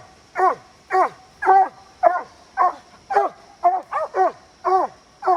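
Treeing Walker coonhound barking at a tree, about two barks a second at a steady rhythm, each bark dropping in pitch at its end: the tree bark of a hound that has treed a raccoon.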